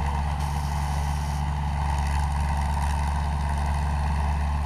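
Diesel engine of a 225 HP Kaset Pattana rice combine harvester running steadily at a constant speed, a deep even drone with no revving.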